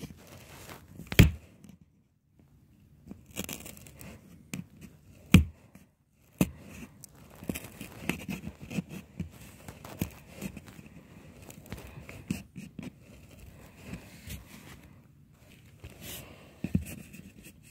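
Handling noise inside a cardboard box: fingers scraping and rubbing against the cardboard wall and a blanket rustling, with a few sharp knocks on the box, the loudest about a second in and about five seconds in.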